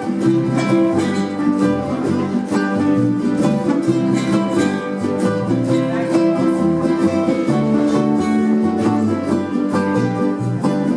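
Ukulele ensemble strumming chords together in a steady rhythm, opening a song just after the count-in.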